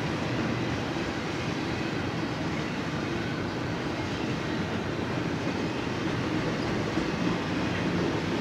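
BNSF double-stack intermodal freight train's container well cars rolling past, a steady noise of steel wheels on the rails.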